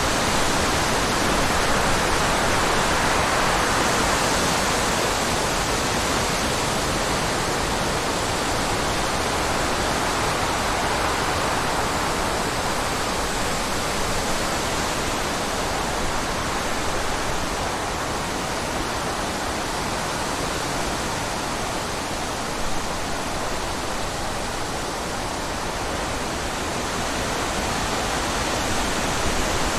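Running water rushing steadily, an even hiss with slow gentle swells and no distinct splashes.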